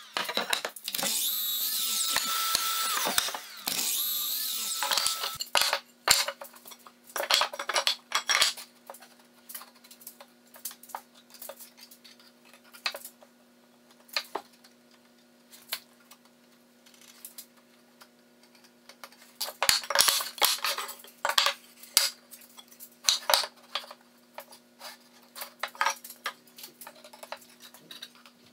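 Sliding mitre saw running and cutting through a pine 2x4, in two runs over about the first five seconds, with a steady whine. After that, scattered knocks and taps of wooden boards being handled and laid out on a workbench.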